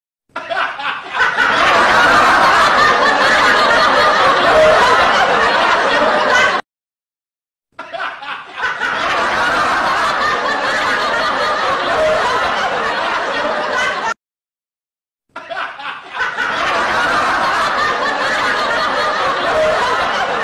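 Laughter, a clip of about six seconds played three times over with a second-long dead silence between repeats.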